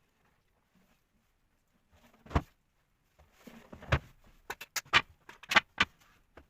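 Wooden knocks and clicks: a single sharp knock, then a quick run of sharp clicks and taps, as the folding legs of a linden-wood low table are worked.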